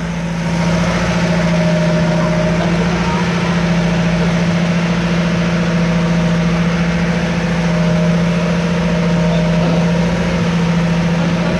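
An engine running at a steady speed, a constant drone that does not change in pitch.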